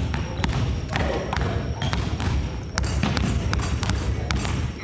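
Several basketballs being dribbled at once on a wooden gym floor: a steady run of irregular, overlapping bounces.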